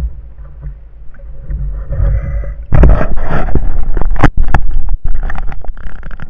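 Water noise on an underwater camera: a low muffled rumble, then about three seconds in a loud, choppy rush of water and splashing with several sharp knocks as the spearfisher swims up toward the surface.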